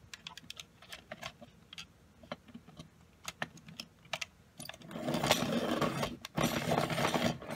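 Dahle 133 hand-crank pencil sharpener: a few light plastic clicks as the pencil is pushed into the feed clamp, then its steel helical cutter grinding the colored pencil in two bursts with a brief break. The cutting stops after a couple of seconds because the point is already done.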